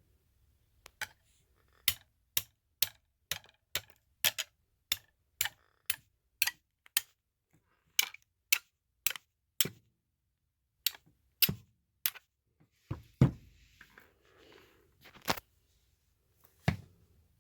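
Sharp taps on rock, about two a second with two short pauses, as a fossil-bearing rock is worked to split it along its layers. Near the end come a few heavier, duller knocks.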